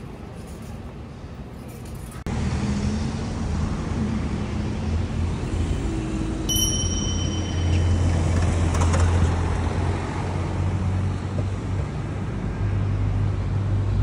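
City street traffic: cars running past with a low engine hum over steady road noise, which gets louder about two seconds in. A brief high-pitched tone sounds about six and a half seconds in.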